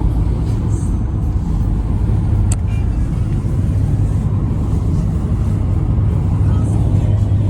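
Steady low road and engine drone inside a moving car's cabin, with a single sharp click about two and a half seconds in.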